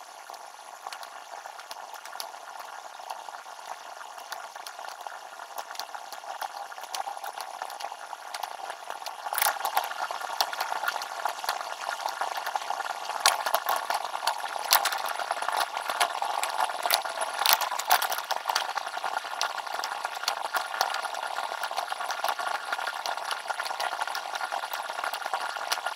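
Computer mouse clicks over room hiss, played back sped up: a fast, irregular patter of sharp clicks over an even hiss, getting louder and busier from about ten seconds in.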